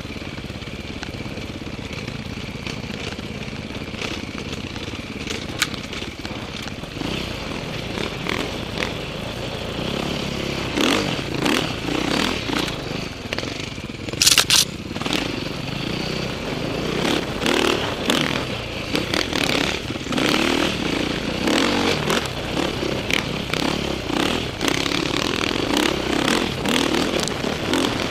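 KTM 530 dirt bike's single-cylinder four-stroke engine running and rising and falling with the throttle while riding off-road, steadier at first and more uneven from about ten seconds in. Scraping and clattering over the rough ground, with a sharp loud knock about fourteen seconds in.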